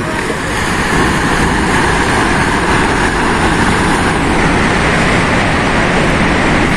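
Landslide: a rock face collapsing, with rock and debris crashing down in a loud, continuous rumble that builds over the first second and then holds steady.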